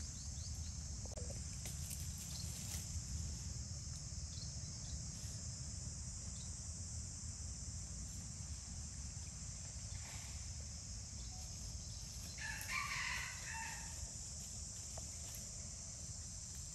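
An animal call, about a second long, about twelve and a half seconds in, over a steady high drone of insects and a low rumble.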